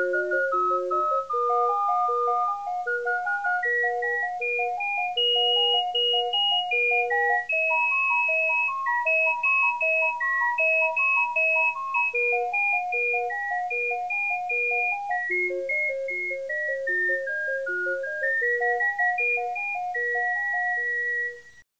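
Background music: a light, bouncy melody over a repeating accompaniment, which cuts off just before the end.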